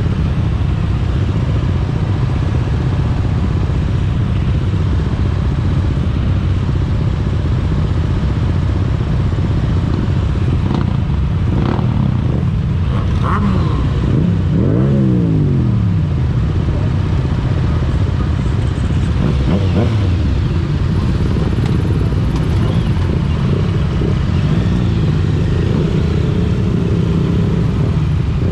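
Motorcycle engines running steadily, with one engine's pitch sliding down about halfway through.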